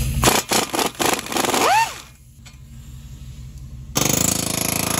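Impact wrench hammering in short bursts as it loosens a bolt on a car's front steering knuckle. About four seconds in, the sound switches abruptly to a louder steady noise.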